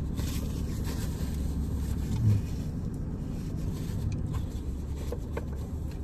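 Steady low hum of a car idling, heard inside the cabin, with light rustling of a paper receipt being handled. There is a single soft low thump a little over two seconds in.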